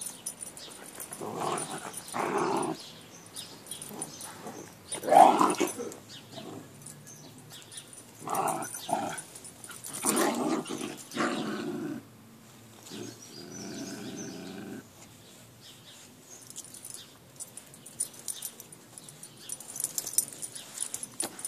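Two dogs growling at each other in rough play, in several separate bursts, the loudest about five seconds in, then dying down. It is play-growling that sounds fiercer than the play is.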